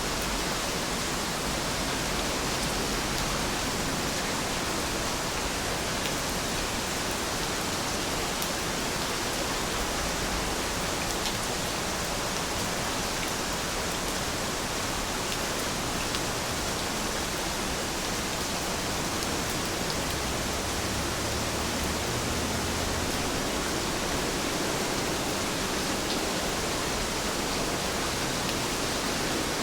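Steady rain falling: an even, unbroken hiss with a few faint ticks of single drops.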